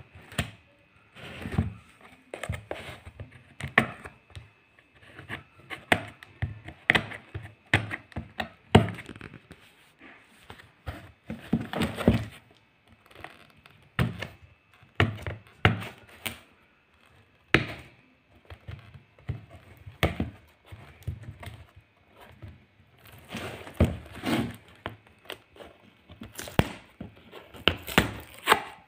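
A cardboard shipping box being worked open by hand: irregular knocks and thumps of the box on a hard floor, with short scrapes and tearing of packing tape.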